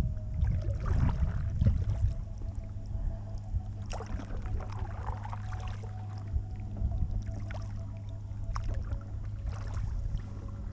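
Kayak paddle strokes: the blades dip and splash water, with dripping in between, three times over a few seconds. Under them runs a steady low rumble.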